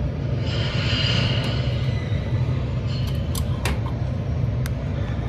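Steady low rumble of city street traffic coming in through an open window, with a brief higher hiss about a second in and a few light clicks later on.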